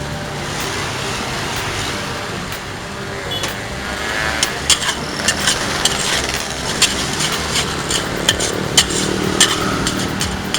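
Metal spatula striking a wok in quick, uneven clanks, starting about four seconds in, over a steady low engine drone like a passing motorcycle.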